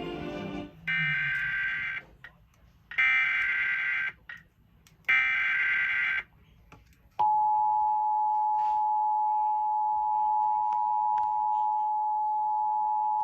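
Emergency Alert System tones: three buzzy, warbling bursts of the SAME digital header, each about a second long and about a second apart, encoding a severe thunderstorm warning. About seven seconds in, the steady two-tone EAS attention signal starts and holds, announcing the spoken alert to follow.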